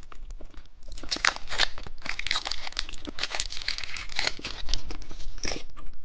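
Plastic candy wrapper being torn open and crinkled by hand: a dense run of crackling rustles that starts about a second in.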